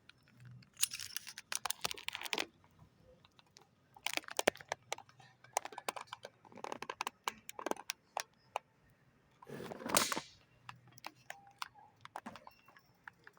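Bursts of rapid clicking and clattering from hard objects being handled, with a louder scraping rush about ten seconds in.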